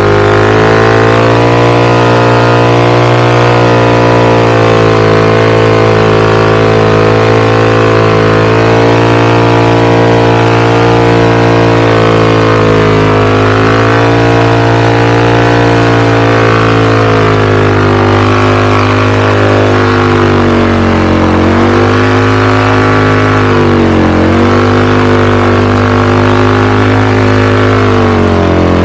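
Royal Enfield Continental GT 650's parallel-twin engine, running loud through a Red Rooster Performance aftermarket exhaust. It is held at steady revs, and the revs dip and recover a few times in the later part.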